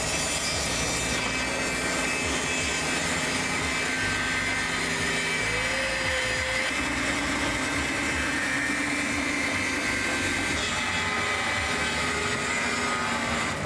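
Band saw running steadily, its blade cutting through a rubber bunny boot.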